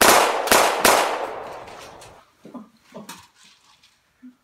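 Three handgun shots in quick succession, about half a second apart, each ringing out in a fading tail that dies away within two seconds. A few faint knocks follow.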